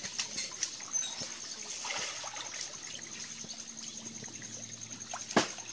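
Water trickling and pouring, with a high, rapidly pulsing note behind it and a sharp knock near the end.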